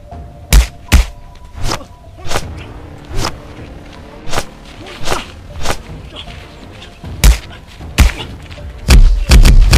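Martial-arts fight sound effects: about a dozen sharp punch-and-kick thuds and whacks with swishes, spaced irregularly and coming in a fast, loud flurry near the end, over background music.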